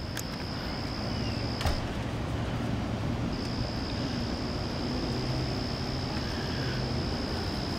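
Outdoor ambience: a steady low rumble with a continuous high-pitched whine over it. The whine breaks off a little under two seconds in and comes back about a second and a half later. There are a couple of faint clicks near the start.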